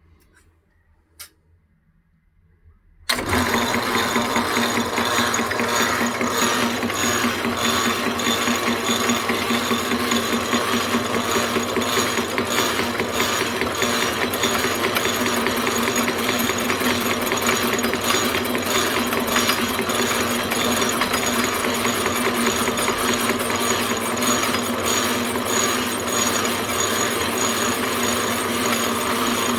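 A single click about a second in, then the Rexman 9-inch lathe starts suddenly about three seconds in and runs steadily, its gearing giving a dense fast ticking over several steady tones.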